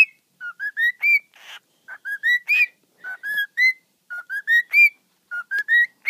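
Cockatiel whistling a short tune of four or five clear notes that step upward in pitch, repeating the phrase about five times at roughly one-second intervals.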